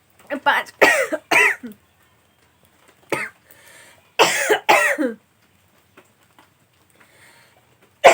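A person coughing in short bursts: a cluster in the first couple of seconds, a single cough around three seconds in, and two loud coughs just after four seconds.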